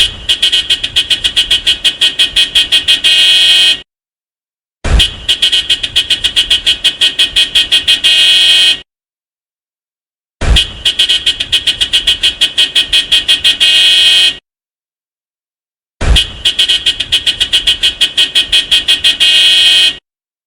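Mitsubishi Pajero car horn sounded in four bursts of about four seconds each, each a quick train of toots at about five a second, with a second of silence between bursts.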